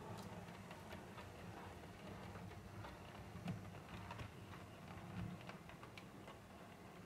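OO gauge model locomotive in Colas Rail Freight livery running over the layout's track and points: faint, irregular clicking of its wheels over rail joints, over a low hum.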